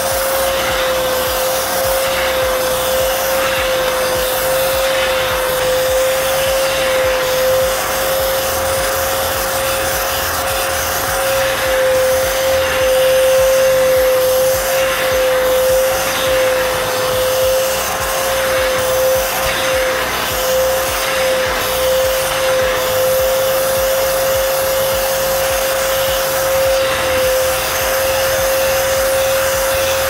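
Arnica Vira wet-and-dry vacuum cleaner with water filter running steadily with a high motor whine. Its upholstery nozzle is sucking over fabric sofa cushions, drawing up pre-applied cleaning solution and dirt from stains.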